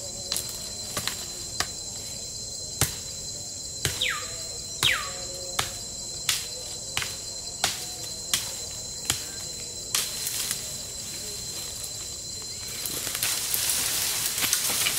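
Sharp chopping strokes into sapling wood, about one a second and not quite even, over a steady high drone of jungle insects. Near the end the chopping gives way to louder rustling of brush.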